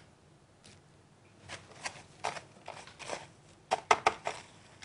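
Thin pieces of steak being pressed and turned by hand in a bowl of dry breadcrumbs: a run of short rustling, crunchy scrapes, louder toward the end.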